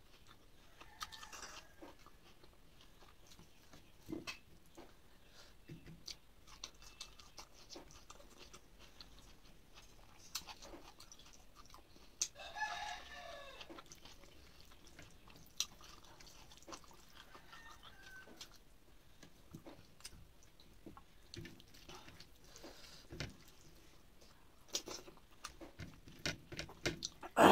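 Soft chewing and fingers working rice on a plate, with small clicks throughout. About twelve seconds in, a rooster crows once in the background, and there are fainter bird calls near the start and around seventeen seconds. A brief, sharp knock right at the end is the loudest sound.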